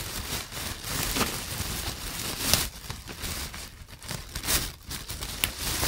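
Plastic shopping bag crinkling and rustling irregularly as a hand rummages through it.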